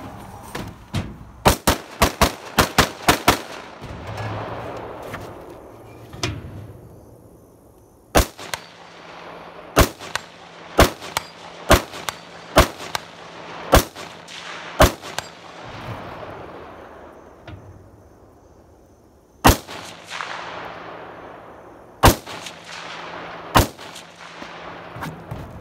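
Rifle gunshots, each followed by a long echo. A fast string of about seven shots comes in the first few seconds, then a run of seven shots roughly a second apart from about eight seconds in, and three more spaced shots near the end.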